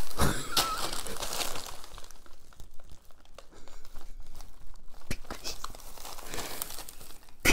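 Clear and blue plastic bags crinkling and rustling as they are handled and opened. The rustling is loudest at the start, lighter in the middle and picks up again shortly before the end.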